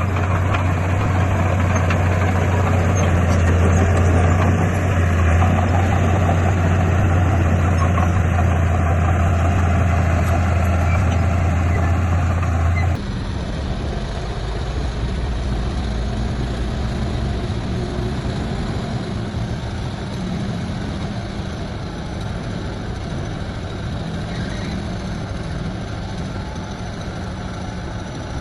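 Heavy diesel construction machinery running steadily with a deep, droning hum. About halfway through, the sound changes abruptly to a quieter, less deep engine running.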